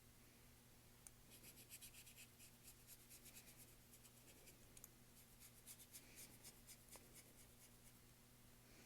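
Faint scratchy strokes of a paintbrush on canvas, short quick dabs several a second, starting about a second in and trailing off near the end, over a low steady hum.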